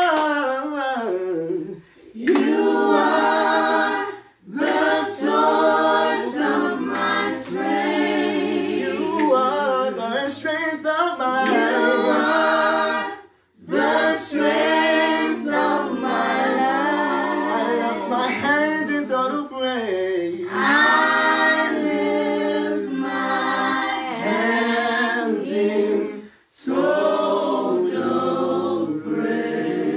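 A voice singing a gospel worship song with little or no accompaniment, in long sung phrases broken by a few short pauses for breath.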